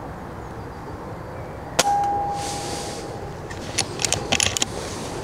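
A regulated .22 PCP air rifle (Daystate Wolverine R) fires once about two seconds in: a sharp crack followed by a ringing tone that fades over about a second. About a second and a half later comes a quick run of metallic clicks as the sidelever is worked to load the next pellet from the magazine.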